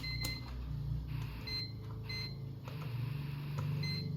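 Digital test meter giving several short, high electronic beeps while a removed electrolytic capacitor from a power supply is being measured for capacitance, over a steady low hum.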